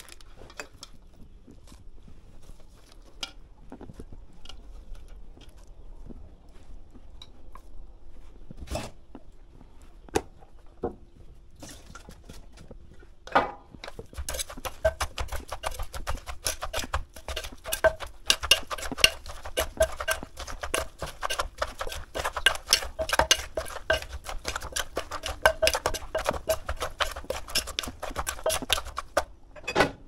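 Papaya salad being pounded with a wooden pestle in a clay mortar, with a spoon turning it over. For the first dozen seconds there are scattered clicks and knocks, then about halfway through a quick, regular run of pounding strokes starts and goes on almost to the end.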